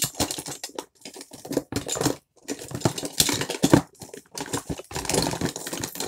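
Hands rummaging through a container of plastic fidget toys, with irregular clicking, clattering and rustling.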